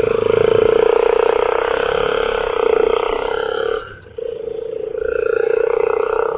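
Vehicle horn held in a long, steady blast, breaking off briefly about four seconds in and then held again.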